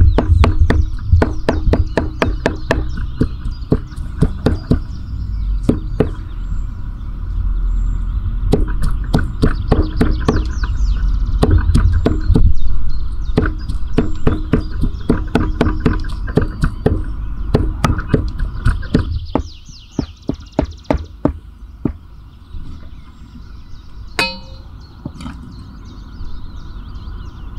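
Heavy cleaver chopping white fat on a wooden stump chopping block, a quick steady run of knocks at about three strikes a second. About two-thirds of the way through the chopping stops, giving way to quieter scattered taps as the minced fat is scraped off the block.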